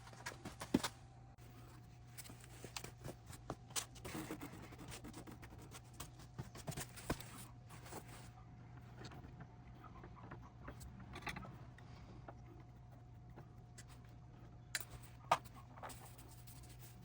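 Scattered light clicks, taps and scrapes of hand work with tools and small parts, over a steady low hum.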